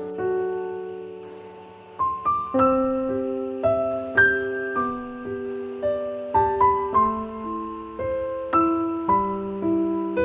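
Background piano music: a slow, gentle melody of single struck notes and chords, each left to ring and fade. A held note dies away over the first two seconds before the melody resumes.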